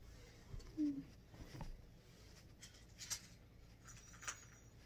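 Quiet rustling and brushing of bedding, with a few short soft scuffs, as a bed is made up by hand.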